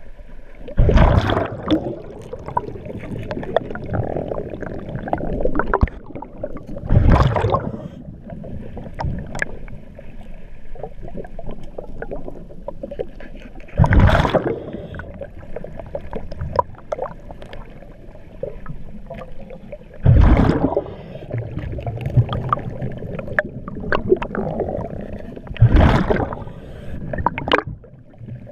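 Scuba diver's regulator breathing heard underwater: a loud rush of exhaled bubbles about every six seconds, five times, with quieter gurgling between.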